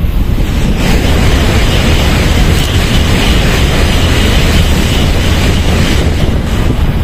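N700-series Shinkansen bullet train passing through the station at speed without stopping: a loud rush of air and wheel noise swells about a second in and holds until near the end. Wind buffets the microphone throughout.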